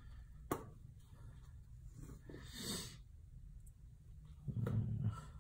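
Quiet garage room tone with a single sharp click of a hand tool about half a second in, a soft breathy exhale in the middle, and a low muffled sound near the end.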